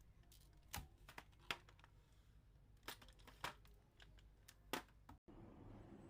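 Faint, scattered clicks and crinkles of hands handling objects, about six in all, with a brief dropout near the end followed by a faint steady hum.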